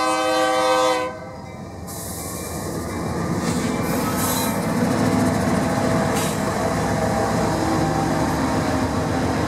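BNSF diesel locomotive air horn sounding a multi-note chord that cuts off about a second in, followed by the rumble of the locomotives and empty grain hopper cars rolling past, building in loudness.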